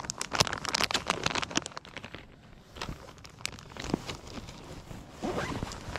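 Close rustling and scraping of gloved hands handling fishing tackle while a new soft-plastic crayfish bait is fitted on the hook: a quick run of scratchy clicks in the first two seconds, then a few scattered ones.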